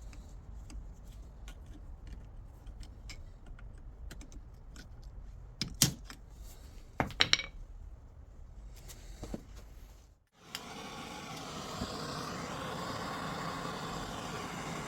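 Light metallic clicks and clinks of parts or tools being handled, with a few sharp clinks in the middle. After an abrupt cut near the end comes the steady running sound of a car.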